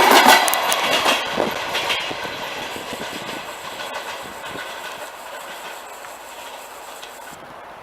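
Passenger train's wheels clattering over rail joints as it passes and moves away, fading steadily from loud to faint.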